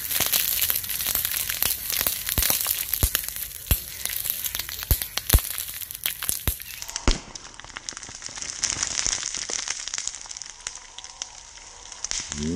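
Sodium metal reacting on water: a steady fizzing hiss with a string of sharp pops as burning pieces burst. The pops die out about seven seconds in, leaving a softer fizz.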